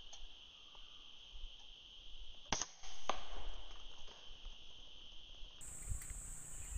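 An air rifle shot about two and a half seconds in, followed half a second later by a second sharp click, over a steady insect drone. Near the end the drone shifts abruptly to a higher pitch.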